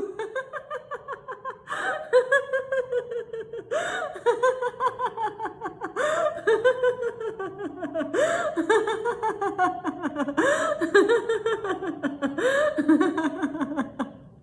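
A woman doing deliberate laughter-yoga laughter: hearty laughs in phrases about every two seconds, each a quick string of 'ha's that falls in pitch.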